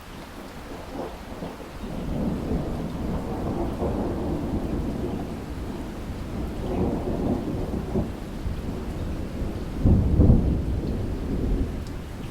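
A thunderstorm: a long roll of thunder builds about two seconds in and rumbles on, peaking in a louder clap about ten seconds in, over steady falling rain.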